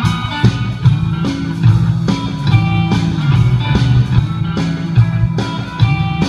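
Blues backing track with no singing: a repeating electric guitar riff over a steady bass line and drums.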